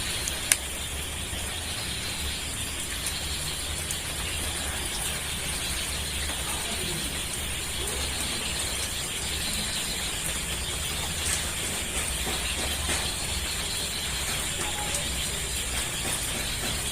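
Steady outdoor background hiss with a low hum underneath, and a single sharp click about half a second in.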